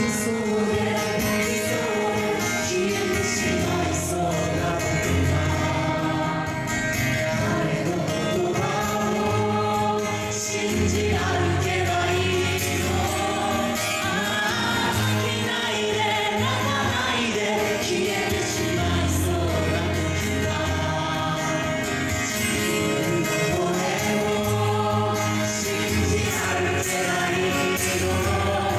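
Live song performance: several voices singing over an ensemble accompaniment with a steady bass line, continuing without a break.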